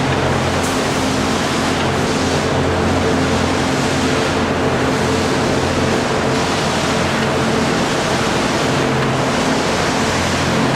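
Sawmill machinery running steadily: a dense, continuous rushing noise with a steady low hum.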